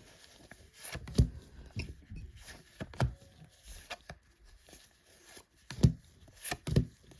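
Pokémon trading cards being handled and flipped through one by one: soft rustling with scattered short taps and knocks, the sharpest about a second in and near six seconds in.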